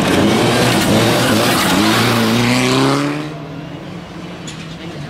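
Mitsubishi Lancer Evolution rally car's turbocharged four-cylinder engine accelerating hard on gravel, its pitch rising as it revs, over the hiss of tyres on loose gravel. About three seconds in, the sound drops suddenly to a fainter, steady distant engine.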